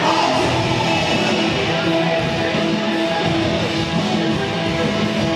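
Guitar-driven music with strummed guitar, playing steadily.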